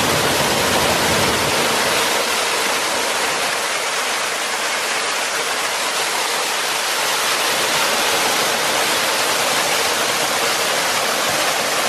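Steady rush of water falling and splashing down a small sandstone cascade.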